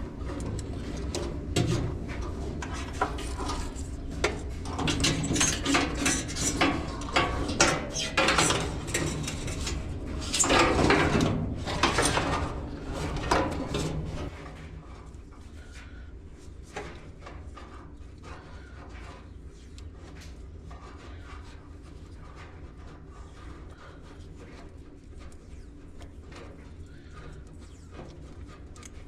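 Hands and small tools working on a wire harness: irregular rustling, scraping and clicking, busiest in the first half, then a steady low hum with only occasional light clicks.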